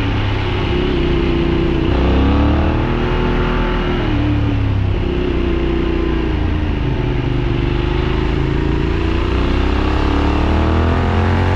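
Benelli 752S parallel-twin motorcycle engine heard from on board while riding, its pitch climbing and falling several times as the rider works the throttle and gears: rising about two seconds in, dropping, rising again, sagging slowly, then climbing near the end.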